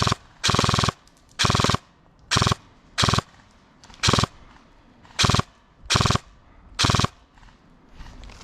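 Airsoft gun firing short full-auto bursts, each a rapid rattle of shots, about one burst a second; the firing stops about seven seconds in.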